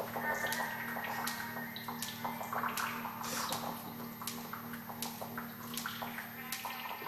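Live experimental sound performance: irregular clicks and crackles scattered over a steady low hum.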